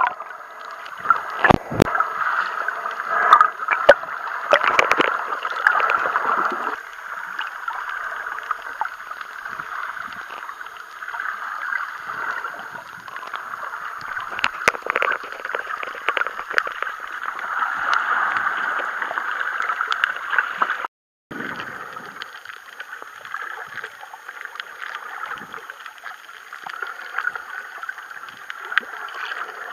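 Muffled underwater water noise picked up by a camera held below the surface: a steady gurgling hiss with scattered clicks and knocks, louder for the first several seconds. The sound drops out completely for a moment about two-thirds of the way through.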